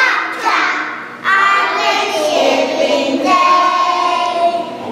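A group of young children singing a song together, holding one long note near the end.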